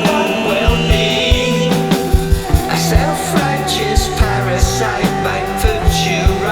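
Rock music with a steady drum beat, bass and guitar, with some singing.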